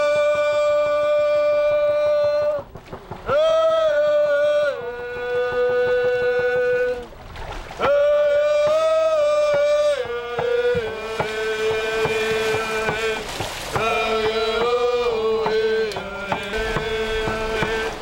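Voices singing a chant-like song together, long held notes of a second or more each that slide between pitches, growing shorter and more wavering in the second half.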